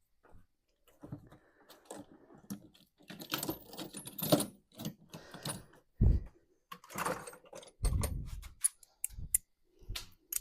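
Metal hand tools being handled and rummaged through: irregular clinks, rattles and rustling, with two dull thumps about six and eight seconds in and a run of sharp clicks near the end.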